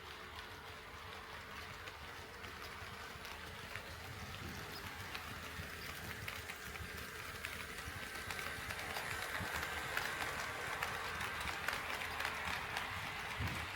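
HO scale model train running on the layout's track: wheels clicking over the rail joints with a steady running hiss, growing gradually louder as it approaches.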